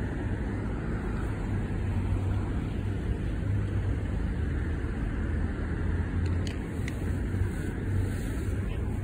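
City street traffic: a steady low rumble of cars passing, with a few faint clicks about six to seven seconds in.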